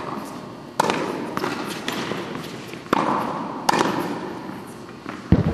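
Tennis ball being struck by rackets and bouncing on a hard court during a rally: five sharp hits, each ringing on in the echo of a large indoor tennis hall, the last the loudest.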